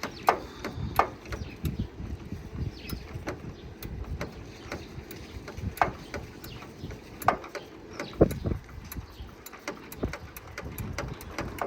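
Irregular knocks and clicks of hand-tool work on a car, a few sharper and louder than the rest, over a low rumble.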